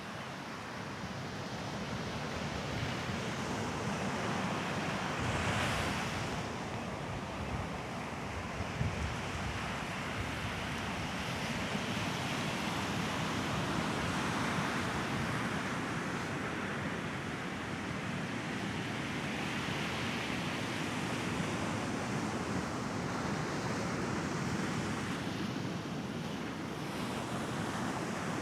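Mediterranean waves breaking and washing up on a sandy beach, surging and receding every several seconds, with the strongest surge about five seconds in.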